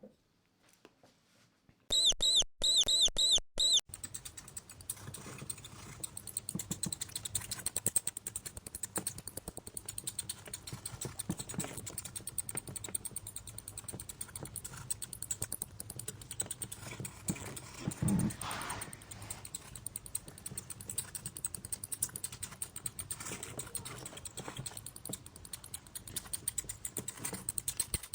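Mouse sound effects: a quick run of about five high-pitched squeaks about two seconds in, then a fast, steady patter of tiny clicks and scratches like small feet scurrying, with a louder scrape about eighteen seconds in.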